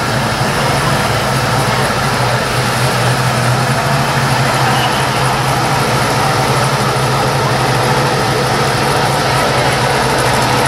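Engines of classic cars, a 1957 Chevrolet and a 1966 Ford Mustang among them, idling steadily as they roll slowly past in a line, a continuous low engine hum with no revving.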